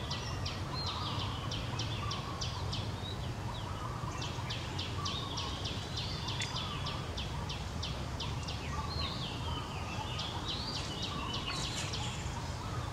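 Birds calling with quick, repeated sharp chirps and short whistled notes, over a steady low rumble.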